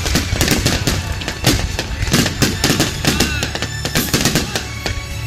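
Fireworks barrage: many aerial shells bursting in quick succession, several bangs a second, with music playing underneath. The bangs thin out after about four seconds.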